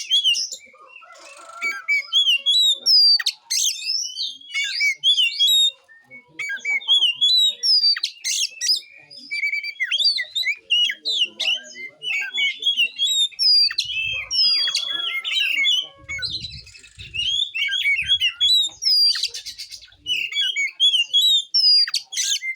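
Oriental magpie-robin (kacer) singing a loud, varied song of clear whistles, slurred notes and rapid chirping runs, phrase after phrase with only short breaks.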